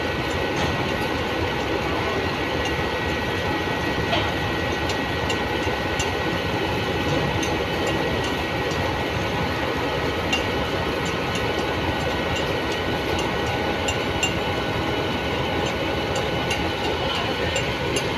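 Farm tractor engine running steadily, with a few faint clinks.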